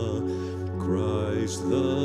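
Slow, soft worship music, with a voice singing long, wavering held notes.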